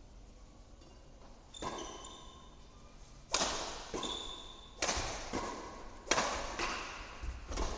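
Badminton rally: rackets hitting the shuttlecock with sharp cracks, about one every second and a half, each echoing in the hall.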